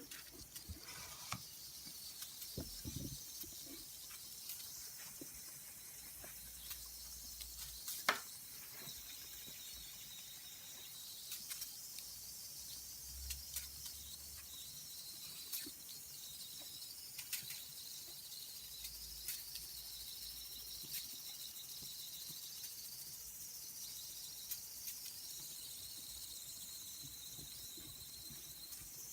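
Saito Heron's ball model steam engine running: a faint, steady high hiss of steam escaping from its jets, wavering slightly in pitch, with scattered small ticks and crackles, the sharpest about eight seconds in.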